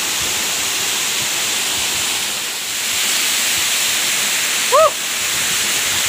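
Mantawila waterfall rushing steadily, an even hiss of falling water. Near the end there is one short voiced call.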